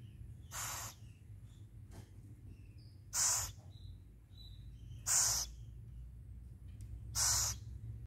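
Young owl giving short raspy, hiss-like calls, four of them about two seconds apart.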